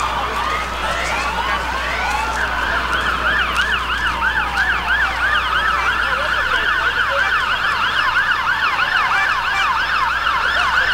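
Several emergency vehicle sirens sounding at once: slow rising wails, joined about two seconds in by a fast yelp that sweeps up and down about four times a second.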